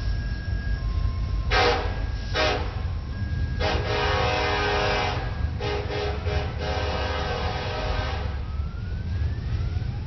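Freight locomotive air horn sounding two short blasts, then a long blast, then a longer blast broken by a few quick stutters, over the steady rumble of the passing freight train's wheels.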